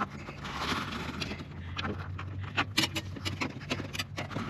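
Bundled speaker wires taped to a pull hook being dragged through a car door's rubber wiring boot: rubbing and scraping in the first second and a half, then a run of small sharp clicks and taps as the wires are worked through.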